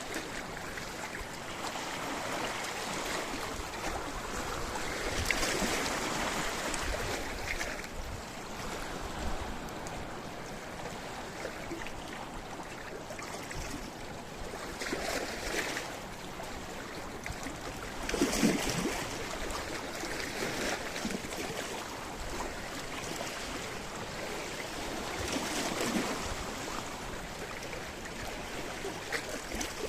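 Sea waves breaking and washing over a rocky shore: a steady rush that swells every few seconds, with the biggest surge about two-thirds of the way through.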